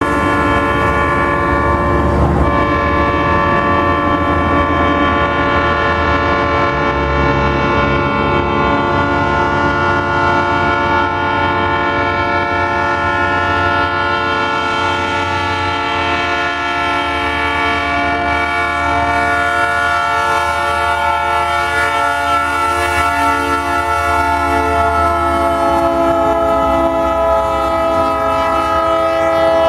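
Air horn of two Ferromex diesel locomotives sounding continuously over the low rumble of their engines, its chord dropping slightly in pitch near the end as the locomotives pass close by.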